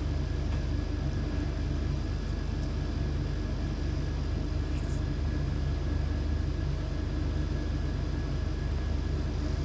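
Steady low mechanical hum with a faint thin high tone running through it; no bird calls.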